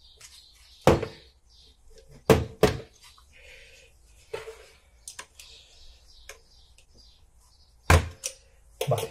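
Handling noise from a motorcycle brake master cylinder and hand tools on a steel workbench: a series of sharp knocks and clicks, the loudest about a second in, two close together around two and a half seconds, and more near the end, with light scraping and clicking between.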